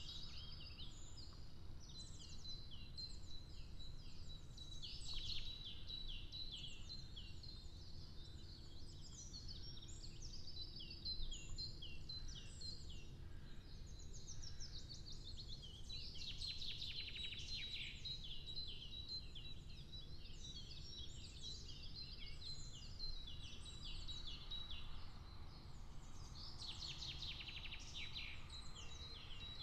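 Several small birds singing at once, a continuous tangle of quick chirps, trills and falling whistles, over a faint low rumble of wind or distant traffic.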